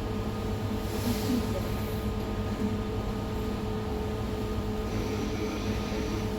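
Ferry's engines running steadily: a constant low drone with a steady hum, and a brief hiss about a second in.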